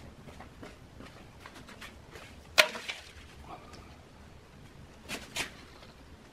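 Hand trowel and hands working wet cement in a metal tin mould: one sharp metallic knock about two and a half seconds in, a few small clicks after it, and two lighter knocks near the end.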